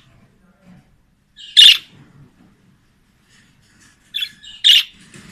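Budgerigars calling: a loud, short, sharp call about a second and a half in and two more near the end, with fainter twittering between.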